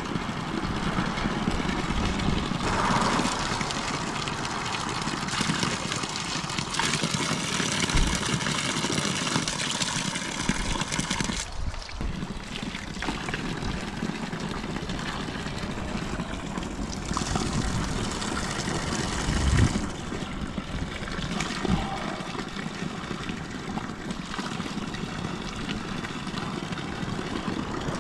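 Spring water pouring in a thin stream from a metal pipe spout and splattering on the stones below, over a steady rushing noise.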